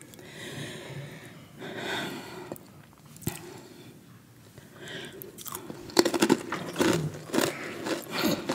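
Close-up crunchy chewing of a crunchy orange snack stick, with loud, rapid crunches in the second half.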